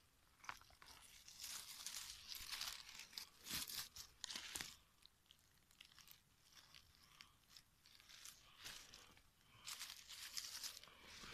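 Dry fallen beech leaves and twigs rustling and crackling in irregular bursts, with small clicks, as a hand works through the leaf litter around porcini mushrooms.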